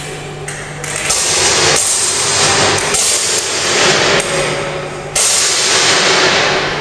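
Electrical arcing at a burning power cable on a wall, sputtering and crackling in loud bursts that kick in abruptly about a second in and again near five seconds, throwing out showers of sparks. A steady low electrical hum shows through in the quieter moments.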